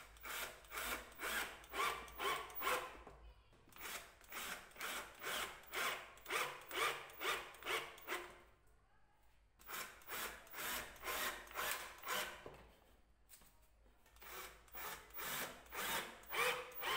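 Cordless drill-driver driving screws into a hardwood table rail in short repeated bursts, about two a second, in four runs with brief pauses between them.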